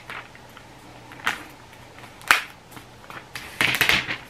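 Protective paper wrap being pulled off a laptop by its tab: short crinkling rips about a second and two seconds in, then a quick run of crackling near the end.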